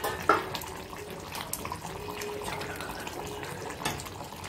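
Thick mutton curry simmering and bubbling in an open pressure-cooker pot, with a steady bubbling hiss. A short metallic clatter just after the start comes from the steel plate used as the lid.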